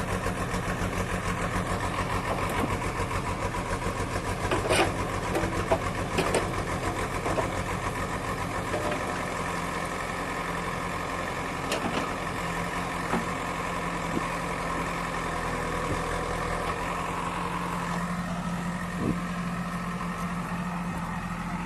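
An engine idling steadily with an even pulsing hum, with a few short sharp knocks or clicks over it.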